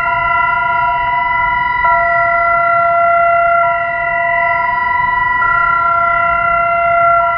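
Bulgarian emergency warning siren sounding its old signal: a loud, steady sound of several tones held together at a fixed pitch, with no rise or fall. The balance between the tones shifts slightly every couple of seconds.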